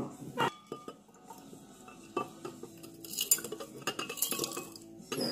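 Gravel and small stones tapping and clinking against glassware as they are tipped into a pint glass of water. A few separate clicks at first, then a busier run of light clinks and taps in the second half.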